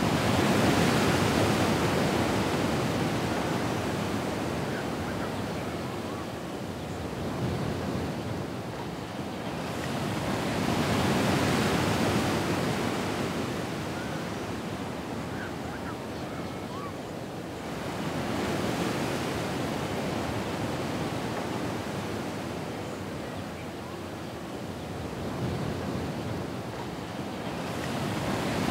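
Ocean surf washing ashore: a steady rushing of waves that swells and falls back in slow surges about every nine to ten seconds.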